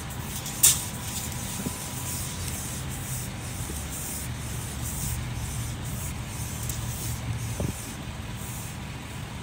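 Steel tape measure being pulled out by hand, with one sharp click about half a second in, over a steady low vehicle rumble.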